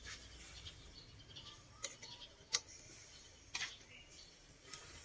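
Charcoal fire under a wire grill of skewered meat, crackling with a few sharp, irregular pops, the loudest about two and a half seconds in.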